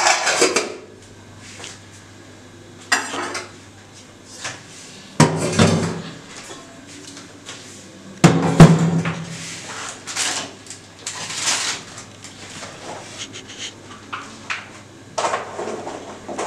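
Steel kitchen utensils and bowls clattering and clinking on a countertop in irregular knocks and scrapes every few seconds, the loudest about eight seconds in, over a low steady hum.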